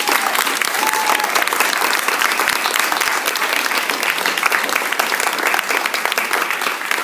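Roomful of people applauding steadily, a dense patter of many hands clapping.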